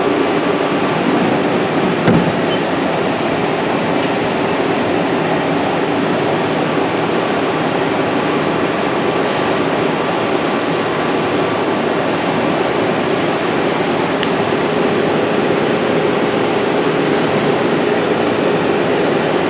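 Steady hum of a powered-up Haas SL-20T CNC lathe and the machinery around it, with a few low tones and a faint high whine, and a single light click about two seconds in.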